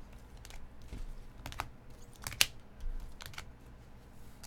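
Hard plastic toploaders holding trading cards clacking against one another as a stack is flipped through by hand: irregular sharp clicks, often in pairs, the loudest about halfway through.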